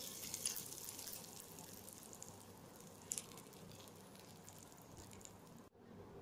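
Hot tempering oil with mustard seeds and curry leaves sizzling faintly on the chutney, dying away over the first couple of seconds into scattered crackles, with one sharper tick about three seconds in.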